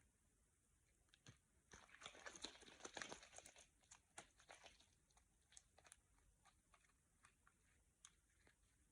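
Slime being squeezed and stretched by hand, making faint crackling and small popping clicks, a dense run of crackles about two seconds in, then scattered clicks.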